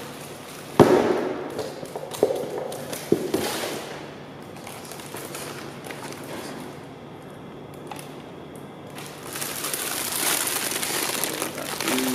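A cardboard shipping box being handled and unpacked: a few sharp cracks and knocks in the first few seconds, the first the loudest, then paper and plastic packaging rustling and crinkling from about nine seconds in.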